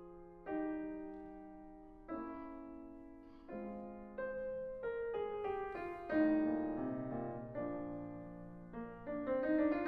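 Background piano music: slow chords struck about every second and a half, each dying away, then quicker notes in the last few seconds.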